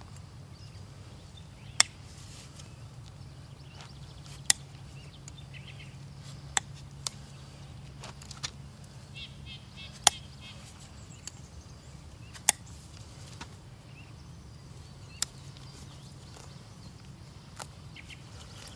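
Hoof nippers cutting through a draft horse's hoof wall during a trim: about eight sharp, single snaps, two to three seconds apart.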